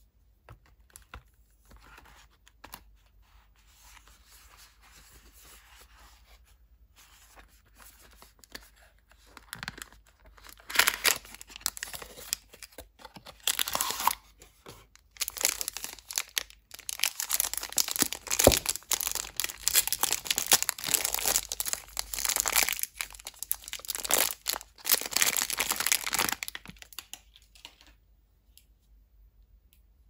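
Clear plastic film wrapper being crinkled and torn off a bar of soap. The crackling comes in spells from about ten seconds in and is loudest in the middle, after some faint handling rustles, then it dies away a few seconds before the end.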